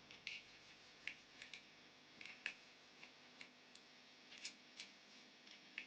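Faint, irregular clicks and light taps of small hard parts being handled and fitted together, about a dozen over a few seconds.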